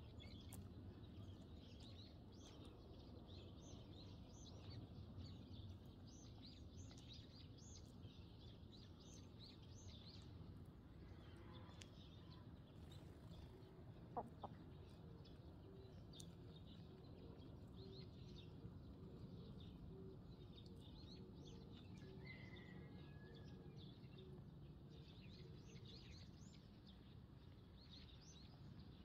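Faint, continual chirping of house sparrows with hens clucking softly as they forage; one brief, sharper call stands out about halfway through.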